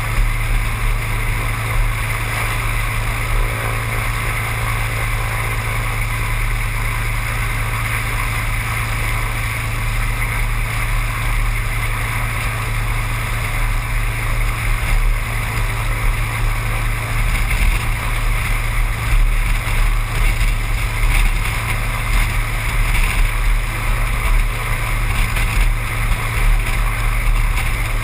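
Seaplane's engine and propeller running with a steady drone, with wind noise.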